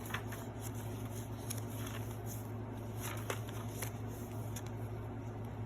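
Paper rustling, with a few soft taps, as the pages and tucked-in cards of a handmade paper journal are handled and turned, over a steady low hum.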